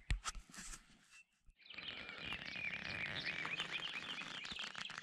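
A chorus of many small birds chirping and singing at dawn, with densely overlapping short calls; it starts after a few knocks and a brief silence, about one and a half seconds in.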